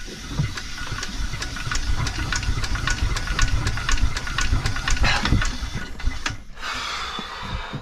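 Bukh DV20 two-cylinder marine diesel being turned over by its hand-starting handle with the decompression levers open, so it spins without firing: a fast run of clicks and knocks, about four a second, over a low rumble and a hiss. Near the end the clicking stops briefly, followed by a short hiss.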